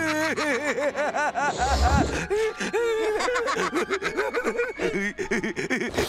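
Cartoon characters laughing: a quick run of high, bouncing "ha-ha" syllables, then a second, slightly lower run of laughter starting about two seconds in.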